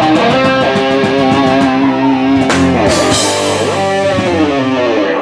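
Live rock band playing: electric guitar chords held over bass and drum kit, with a cymbal crash about two and a half seconds in.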